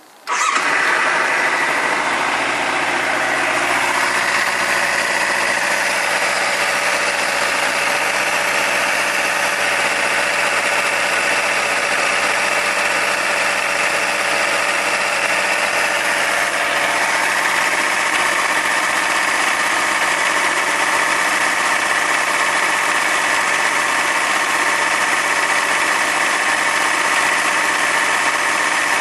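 Kawasaki Ninja 300's parallel-twin engine starting about half a second in, then running steadily. It is making a strange noise that the owner finds worrying.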